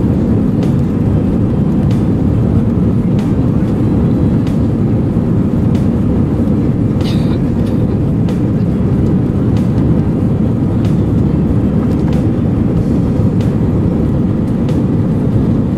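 Steady low rumble of airliner cabin noise aboard an Airbus A320, with faint light ticks now and then.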